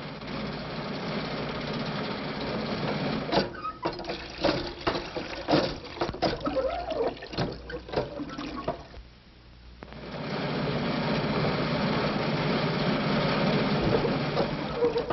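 A battered old car (the jitney) running with a steady chugging noise, broken in the middle by a stretch of irregular clattering rattles and knocks. It drops away briefly about nine seconds in, then runs steadily again.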